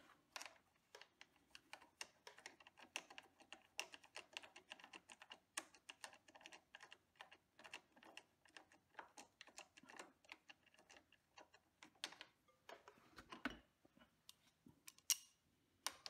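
Faint, irregular metallic clicks and taps of a hand socket on the front brake caliper's mounting bolts as they are threaded back in, a few clicks a second.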